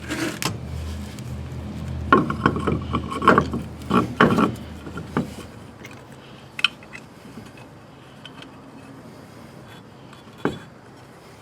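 Clattering, scraping and knocking as a temporary mini spare wheel is fitted onto the wheel studs of a car hub and lug nuts are handled, busiest in the first five seconds, then two single knocks.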